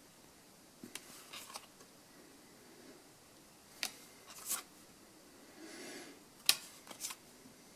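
Yu-Gi-Oh! trading cards being flipped through by hand: scattered short scrapes and flicks of card sliding against card, the sharpest one near the end.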